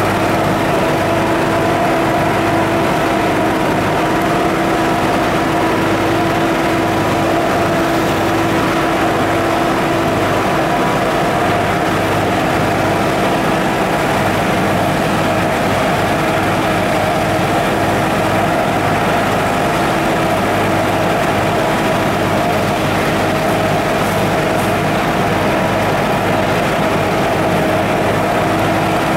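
Tractor engine and electrostatic sprayer's blower fan running steadily while spraying a vineyard row: a loud continuous drone with a few steady hum tones over a low pulsing rumble.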